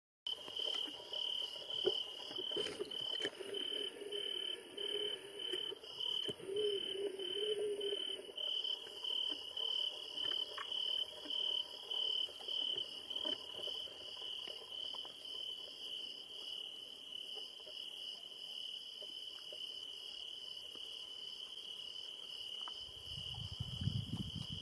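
Crickets chirping at night in a steady, even pulse, about two chirps a second. A low rumble builds near the end.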